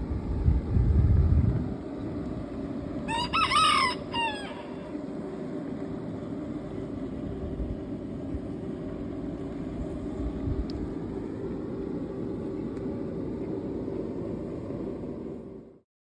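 A rooster crowing once, about three seconds in, over a steady low hum, with a heavier low rumble in the first couple of seconds.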